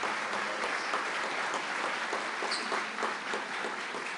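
Audience applauding: a steady, dense round of many hands clapping to welcome a speaker.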